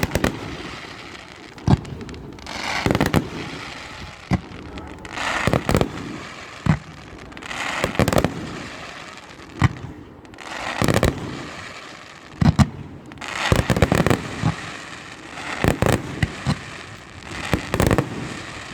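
Fireworks display: aerial shells bursting in a steady succession of sharp bangs, several every couple of seconds, with crackling between them.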